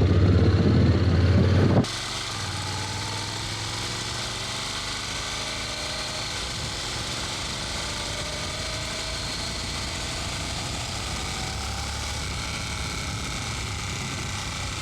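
Honda NC750X motorcycle's parallel-twin engine running with a strong low rumble. About two seconds in it cuts abruptly to a quieter, steady engine sound mixed with an even hiss, as heard through a different microphone.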